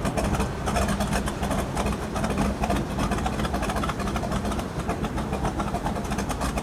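Engine idling: a steady low hum with a fast, uneven clatter of ticks running through it.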